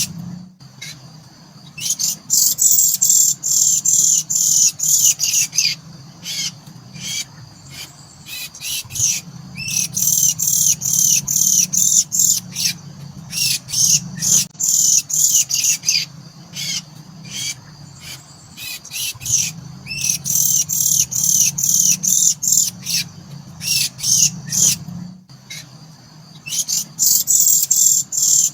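Javan mynas calling inside their nest: bouts of rapid, high chirps lasting a few seconds each, repeated four times, over a steady low hum.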